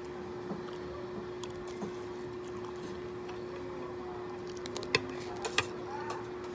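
A metal spoon and fork click sharply against a plate twice, about five seconds in, over faint chewing and a steady hum.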